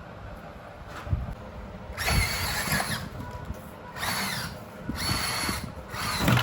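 Small electric motor and gearbox of a radio-controlled truck whining in four short bursts of throttle, the first about two seconds in and the longest.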